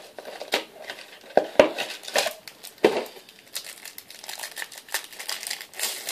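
Wrapper of a football trading card pack crinkling and tearing as it is opened by hand, in irregular crackles and rustles.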